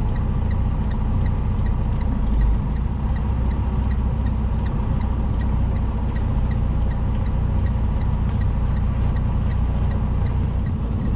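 Semi-truck diesel engine running at low revs, heard from inside the cab as a steady low rumble, with a faint, regular ticking over it.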